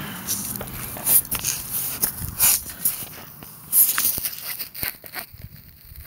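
Handling noise from a phone camera: irregular rustling and scattered clicks and knocks as it rubs against clothing and is moved about.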